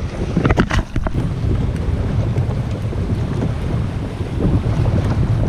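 Wind buffeting the microphone in a steady low rumble, with a few sharp clicks or knocks about half a second to a second in.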